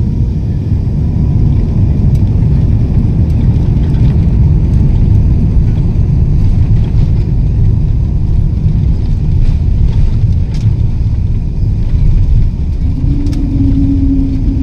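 Airliner cabin noise during landing: a loud, steady low rumble heard from inside the cabin, with a steady hum coming in near the end.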